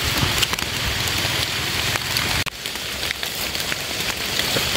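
Steady rain falling on forest foliage and leaf litter, a continuous hiss dotted with many small drop clicks. It dips briefly about halfway through.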